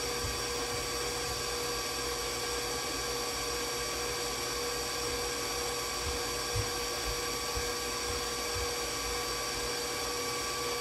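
Electric stand mixer running steadily at speed, its motor giving a constant multi-toned whine as it whips homemade marshmallow icing in the metal bowl.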